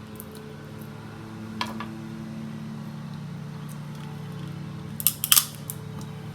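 A few sharp clicks over a steady low hum: one about a second and a half in, then a louder quick cluster of clicks about five seconds in.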